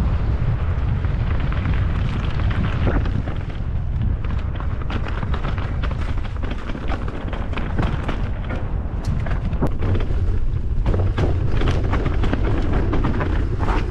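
Mountain bike riding fast down a dry, leaf-covered trail: a steady low wind rumble on the bike-mounted camera's microphone, with the tyres crunching over leaves and stones and the bike rattling in sharp clicks, more of them from about four seconds in.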